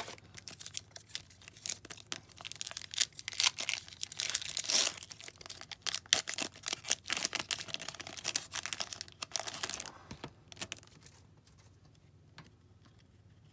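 Foil wrapper of a hockey card pack being torn open and crinkled: a dense, irregular crackling that dies away about ten seconds in.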